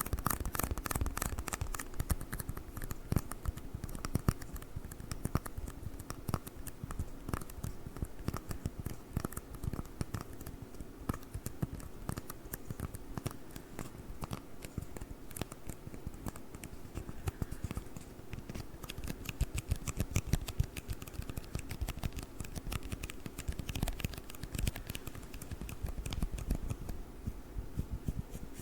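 Fast, dense tapping and scratching on tiny red cups: a stream of rapid, crisp clicks.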